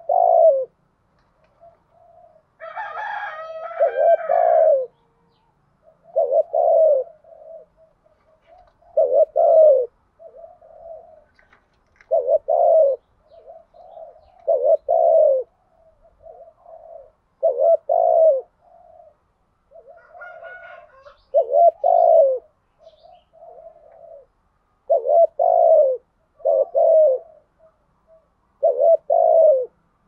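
Spotted dove cooing: a caged decoy's 'thúc gù' coo, a low rolling phrase repeated about every three seconds. Twice, a brief higher-pitched call breaks in.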